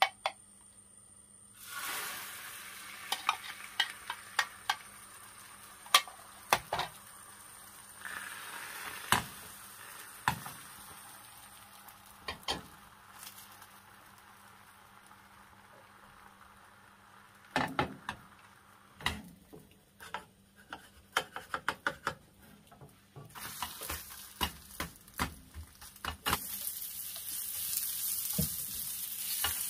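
Beaten egg sizzling as it sets in an oiled square nonstick egg pan. The sizzle starts suddenly about two seconds in, with scattered sharp clicks and taps of a utensil on the pan. Near the end strips of fish cake fry in the pan with a louder sizzle while being stirred with a wooden spatula.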